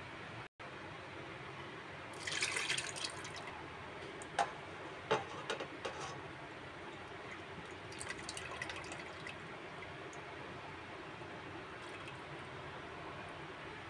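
Milk pouring from a can into a metal pot, with a few short knocks, likely the can against the pot, about four to six seconds in.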